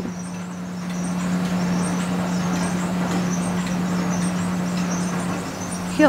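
Village chakki flour mill running: a steady motor hum under a whirring noise of the belt-driven machinery, growing a little louder about a second in and then holding steady.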